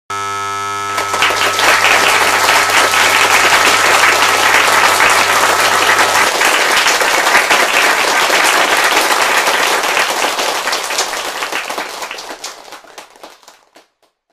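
Audience applause, a sound effect, starting about a second in and fading out near the end. Under it is a steady buzzing tone that sounds alone at first and stops about six seconds in.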